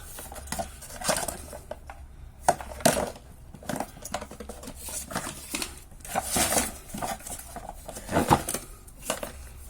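Plastic and metal parts of a vacuum cleaner being handled during dismantling: scattered clicks, knocks and scrapes, with sharper knocks about two and a half seconds in and near the end.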